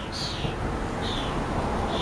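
A sparrow chirping: three short, high chirps under a second apart, over a low steady outdoor rumble.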